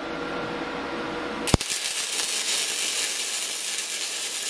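MIG welding arc crackling and hissing steadily on steel plate, starting with a sharp click about a second and a half in; before that, only a low steady hum.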